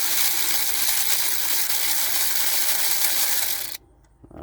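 Electric ratchet running steadily with a 15 mm socket on an extension, spinning out a belt tensioner bolt; it stops abruptly near the end.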